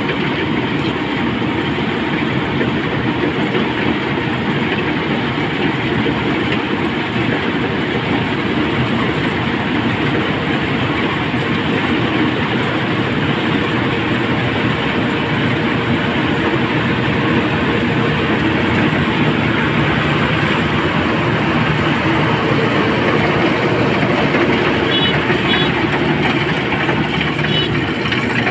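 Zoomlion tracked combine harvester running steadily while harvesting a paddy crop, a continuous loud machine noise.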